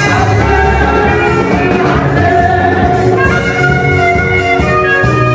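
Music with singing over a heavy bass line.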